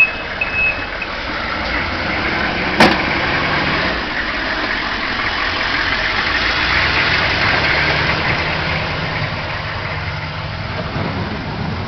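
Snowplow truck's engine running, growing louder toward the middle and easing off near the end, with its reversing beeper sounding for about the first second. A single sharp click about three seconds in.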